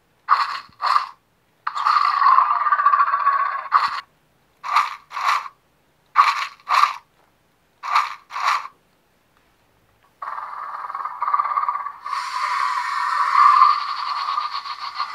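Mattel Grab N Growl Indoraptor toy working its grab action: short mechanical rattles in pairs about half a second apart as the arms snap shut and open, several times. Its small speaker plays electronic roar sounds, a short one about two seconds in and a longer one from about ten seconds to the end as the eye lights up.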